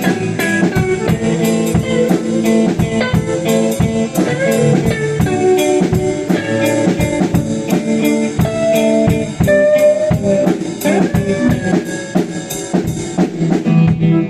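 Band playing live in a rehearsal room: a drum kit keeping a steady beat with cymbal hits about three times a second, under guitar and bass. The playing breaks off at the very end.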